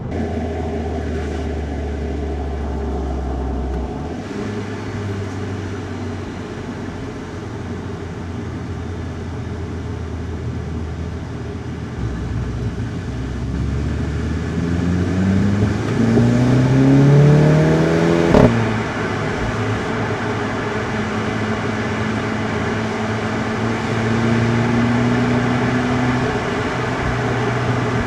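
Volkswagen Golf GTI mk7.5's turbocharged four-cylinder engine pulling under acceleration, its note rising for about four seconds. Then comes a sharp click and a sudden drop in pitch as it shifts up. After the shift it runs steadily along with tyre and road noise.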